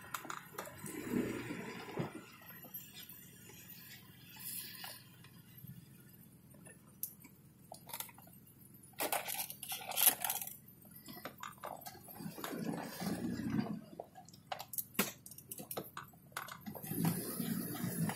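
Inside the cabin of a BMW E32 on the move: scattered sharp knocks and clinks, with a few dull low thumps as the car goes over bumps. This is the car's unexplained knock, which a diagnostic check did not trace to the suspension.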